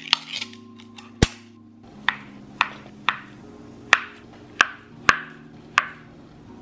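A kitchen knife slicing through a block of Spam luncheon meat and knocking on a plastic cutting board: seven sharp knocks about half a second apart from about two seconds in, after a couple of lighter clicks as the opened can is handled.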